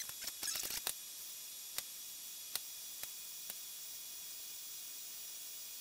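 Rapid small clicks and clatter as a coaxial cable is fitted to the spectrum analyzer's input, then four single clicks of front-panel keys being pressed, spaced apart, over a steady faint electronic hiss.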